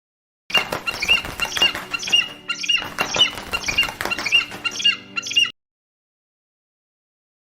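An animal's high squeaking call, repeated about twice a second for about five seconds.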